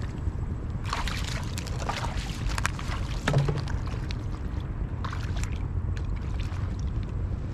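Steady low rumble of wind on the microphone, with short bursts of water splashing and sloshing about one, two and five seconds in, and a few small clicks.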